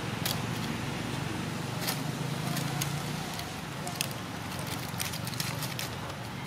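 Dry leaves crackling and rustling as a baby monkey scrambles over rocks, in scattered sharp clicks that come thickest in the second half. A steady low hum runs underneath.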